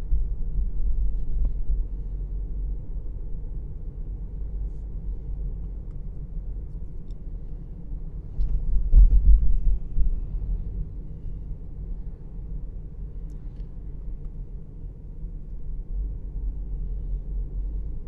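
Low road rumble of a car driving slowly along a city street. It swells louder at the start and again for about a second and a half around nine seconds in.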